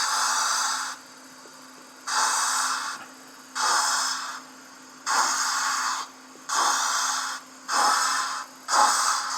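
Lenz O gauge Class 86 steam locomotive's DCC sound decoder playing steam sounds through the model's speaker: a long hiss that stops about a second in, then exhaust chuffs that come gradually quicker as the locomotive pulls away.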